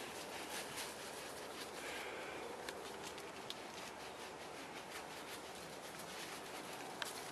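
Hands rubbing a hydrogen peroxide, baking soda and dish soap de-skunking mixture into a dog's fur: a faint, steady rubbing with small scattered clicks.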